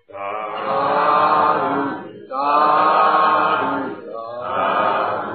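Three long, drawn-out chanted calls of "sadhu, sadhu, sadhu" (Burmese "thadu"), the customary response of approval that closes a Buddhist sermon.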